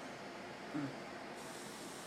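Steady hiss, with one short low snort from a sleeping man about three-quarters of a second in.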